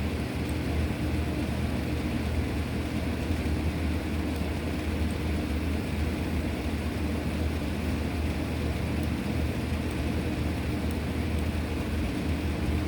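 CNC router running steadily while machining a guitar body, a constant machine hum with no breaks or changes.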